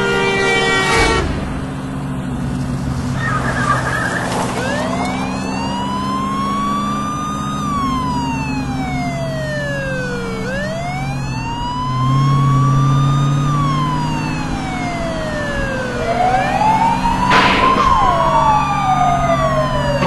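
An emergency-vehicle siren in slow wail mode, rising and falling about every six seconds, over car engines running steadily. A held multi-note tone cuts off about a second in, and a short sharp burst of noise comes near the end.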